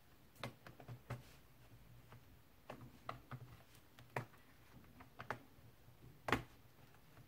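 Irregular faint plastic clicks and snaps as a plastic pry pick is worked along the seam of an Asus F550Z laptop's keyboard top case, prying its plastic clips loose; one sharper snap comes about six seconds in.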